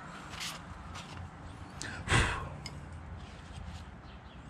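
Quiet handling and rag-wiping of an aluminium motorcycle stator cover, with a few light clicks, and one short sigh about two seconds in.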